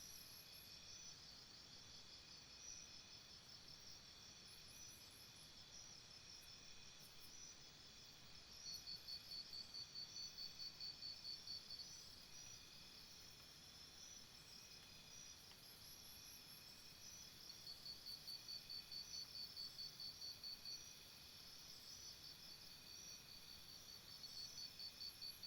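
Faint chorus of insects buzzing and chirping. A louder pulsing trill of about four to five pulses a second sounds around a third of the way in, again past the middle, and once more near the end.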